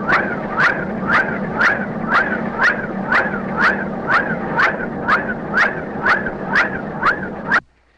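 Rhythmic pulsing soundtrack effect: a sharp click with a short swooping tone, repeating evenly about twice a second over a steady low hum. It cuts off abruptly near the end.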